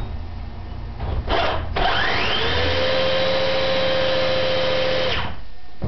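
Electric drill running at full speed to spin a stripped drill's motor and gearbox as a generator. It gives a short blip about a second in, then spins up with a rising whine, runs steadily for about three seconds, and stops.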